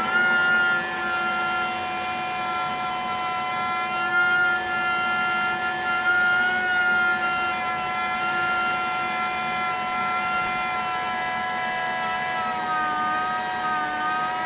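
Small turbine spinning at very high speed, giving a steady high-pitched whine with several pitches at once; the pitch sags slightly near the end.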